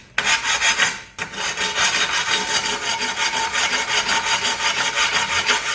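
Sanding stone rubbed back and forth along the cut edge of a porcelain tile in quick, rasping strokes, taking the roughness off the nipped edge. The strokes stop briefly about a second in, then carry on steadily.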